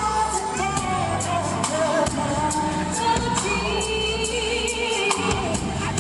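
Live R&B music: a female vocal trio singing melodic lines over bass and drums, with steady high percussion ticks.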